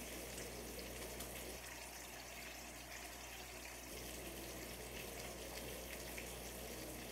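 Food frying in a pan on the stove, a faint steady sizzle with small scattered crackles over a low hum.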